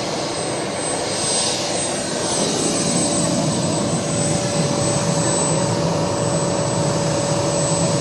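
Jetcat P-220RXi model jet turbine in a large-scale Fiat G91 model, running steadily at low power on the ground: a steady high whine over a rushing exhaust hiss, a little louder from about two and a half seconds in.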